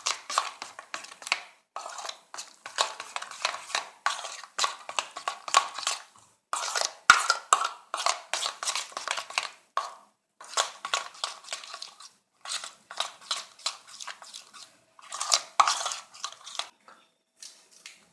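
A spoon mixing thick besan (gram flour) batter in a bowl, with rapid repeated scraping and clinking against the bowl in runs, broken by short pauses.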